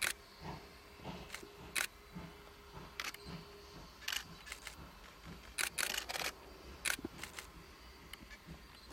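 Camera shutters clicking, singly and in quick bursts, over the faint, even chuffing of a distant steam locomotive working toward the camera at about two beats a second.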